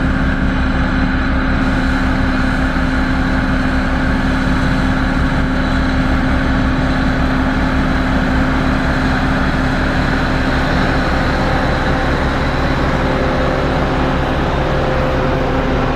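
Diesel engine of a heavy road-construction machine running steadily, with a fast low throb and a steady hum.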